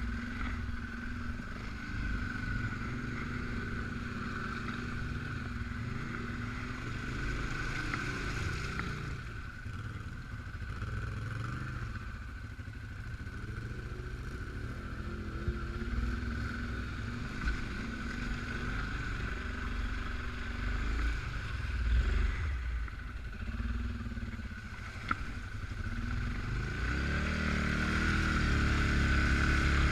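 Suzuki KingQuad 750 AXi ATV's single-cylinder engine running under way off-road, its revs rising and falling with the throttle, with a few short knocks from the ride. It gets louder and revs higher near the end.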